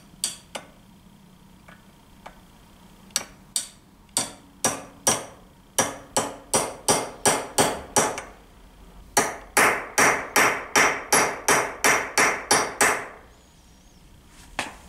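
Claw hammer tapping a driver to seat a new crankshaft oil seal into a Motobecane AV7 moped's crankcase half held in a vise. Sharp, slightly ringing metal taps: a few spaced ones, then a steady run of about three a second, and after a short pause a faster, louder run of about four a second that stops shortly before the end.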